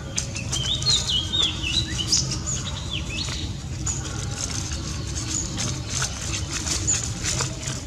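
Birds chirping, with a cluster of quick chirps in the first two seconds, over dry fallen leaves rustling and crackling under the paws of dogs and puppies moving about.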